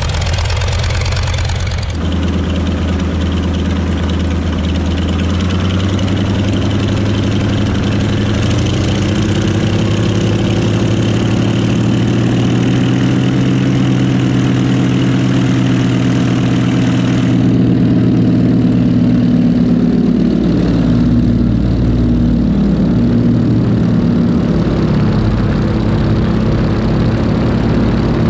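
PZL-104 Wilga's AI-14RA nine-cylinder radial engine running on the ground, heard close up from the wing; about a third of the way in the revs rise, hold steady, then ease back down after about twenty seconds. The first two seconds are a different radial engine, the CSS-13 biplane's M-11D, ticking over.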